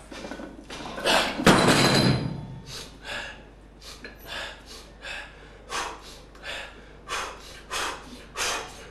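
A heavily loaded barbell set down hard on the gym floor after a deadlift, one loud thud about one and a half seconds in. It is followed by the lifter's rapid, forceful breaths, about one every two-thirds of a second, as he recovers between reps.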